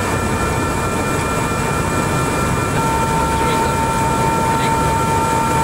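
AS350 helicopter's turbine engine running after start, heard from inside the cockpit: a steady whine over a loud, even rumble. A further steady tone joins about three seconds in.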